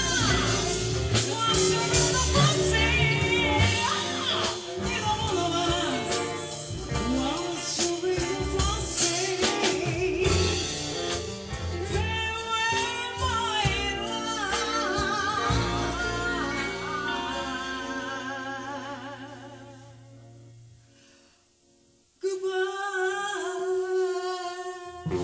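Live soul band playing with singing. The music fades down to near silence about twenty seconds in, then another passage of music cuts in abruptly.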